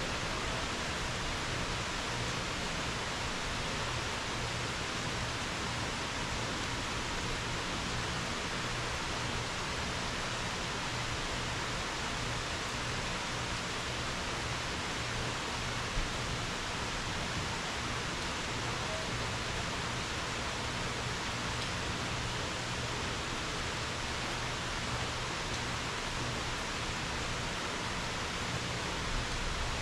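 Steady rain falling in a summer thunderstorm, an even hiss with no thunder, and one brief tap about halfway through.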